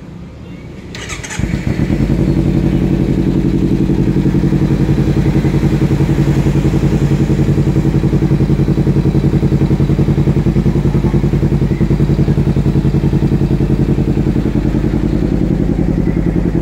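Kawasaki Ninja 250 FI parallel-twin engine starting up about a second in, then idling steadily with an even pulsing beat through an aftermarket racing exhaust. It sounds very aggressive.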